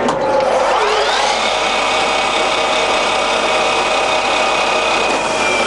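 Colchester Master 2500 lathe headstock spinning up in reverse at its top speed range: a dip, then a gear whine rising in pitch over about a second. It then runs steady and starts to fall in pitch near the end as it slows.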